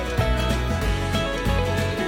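Background music: an upbeat country-style tune with guitar and a steady beat.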